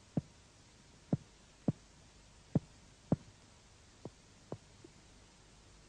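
Mediate chest percussion, a finger tapping on a finger laid on the chest wall, while mapping the right border of the heart's relative dullness. Short dull knocks come in pairs about half a second apart, with about a second and a half between pairs, and the last few are fainter.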